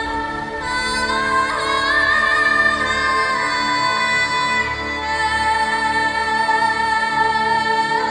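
Ambient background music: steady held chords, with a singing voice wavering over them from about a second and a half in.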